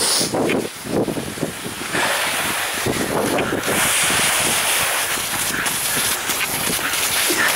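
Skis gliding downhill over packed snow with a steady hiss, mixed with wind buffeting the microphone. The sound is gusty at first, then about two seconds in becomes a louder, even rush as speed builds.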